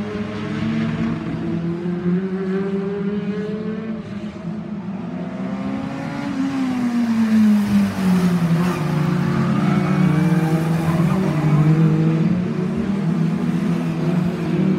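Stock car engines running on an oval track, several at once, one of them falling in pitch about six seconds in.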